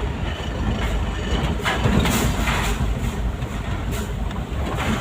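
Heavy road vehicle's engine running with a steady low rumble among traffic noise, with a rush of noise about two seconds in.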